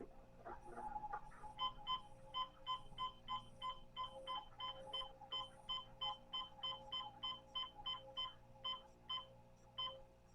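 A digital clock beeping at each button press as its date is stepped through while being set: short high beeps, about three a second, starting a second or two in and spacing out near the end.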